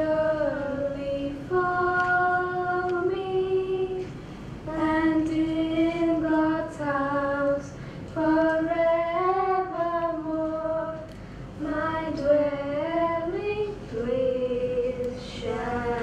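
A solo female voice singing a slow, unaccompanied devotional prayer song in long melodic phrases with held notes.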